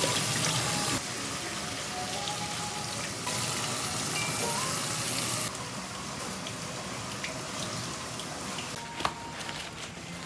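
Tap water running into a stainless-steel sink as a cuttlefish is rinsed under it. The level steps down about a second in and again about five and a half seconds in, with a short knock about nine seconds in.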